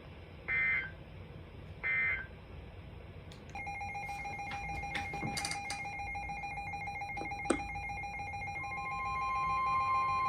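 EAS end-of-message data signal: the last two of three short warbling digital bursts, about a second and a half apart. Then faint steady electronic tones with a few clicks, and near the end a steady alert tone fades in, rising toward the next alert.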